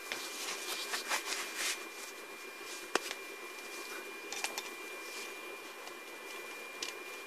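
Small handling noises at a workbench: rustling for the first couple of seconds, one sharp click about three seconds in and a few fainter clicks, over a steady low hum and a thin high-pitched whine.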